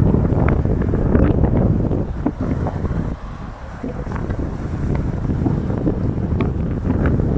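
Strong sea wind buffeting the microphone: a loud, gusting low rumble that eases briefly about three seconds in, with short crackles through it.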